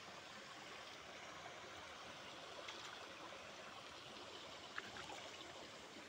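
Faint, steady rush of a rocky river flowing between boulders, with one short tap about a second before the end.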